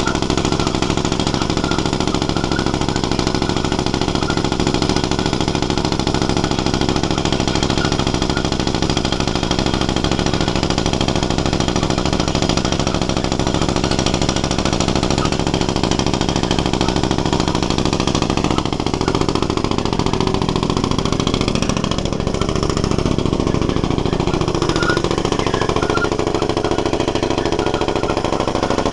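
Pneumatic down-the-hole hammer drilling vertically into rock: a loud, continuous hammering and rush of compressed air blowing rock dust out of the borehole, over running machinery. The tone of the drilling shifts about two-thirds of the way through.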